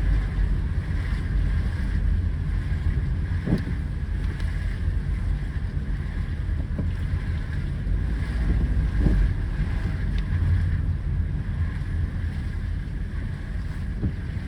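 Steady low rumble of a car being driven, heard from inside the cabin: road and tyre noise with engine drone.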